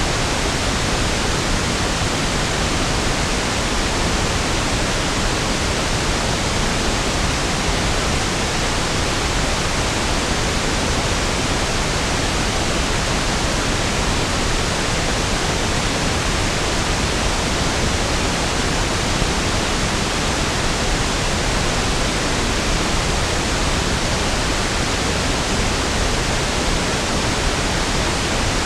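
Steady pink noise: an even, unchanging hiss, deeper and smoother than white noise.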